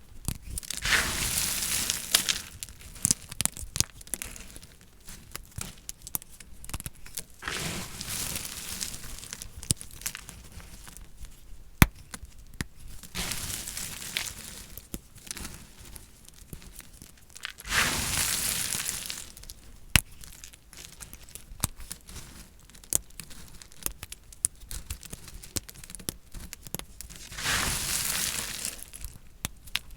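A knife cutting dry soap with crisp crunching and crackling. There are four longer slicing strokes, near the start, about a quarter in, around two thirds in and near the end, with many sharp little snaps and clicks between them.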